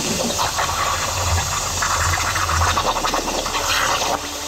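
Hypertherm Powermax65 plasma torch cutting 16-gauge sheet steel at 40 A on a CNC table: a loud, steady hiss of the cutting arc and air jet. It drops to a quieter hiss about four seconds in as the cut ends.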